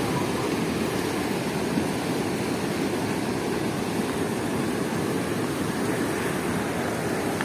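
Steady roar of white water rushing out through the open sluice gates of a river weir.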